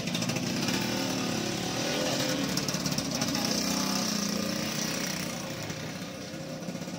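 A small engine running steadily with a fast, even pulse. It eases off a little in the last couple of seconds.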